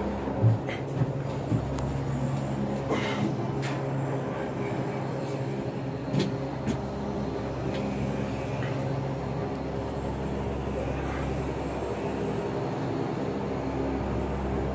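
Steady mechanical hum of a gondola lift's station machinery, heard from inside a cabin, with a few scattered knocks and clunks as the cabin moves through the station.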